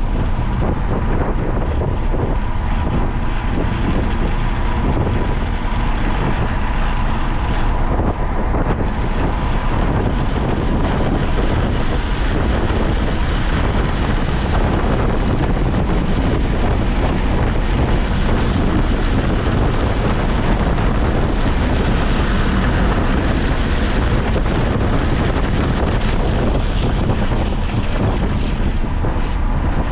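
A car driven at speed: a steady loud rush of wind and road noise over the running engine, with wind buffeting the microphone.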